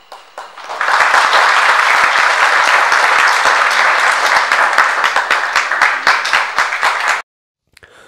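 Audience applause, building over the first second into steady dense clapping and cutting off suddenly near the end.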